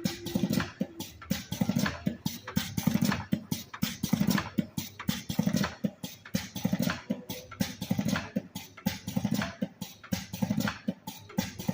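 Automatic filter-cigarette making machine running, with rapid mechanical clicking several times a second over a deeper pulse that repeats about every second and a quarter.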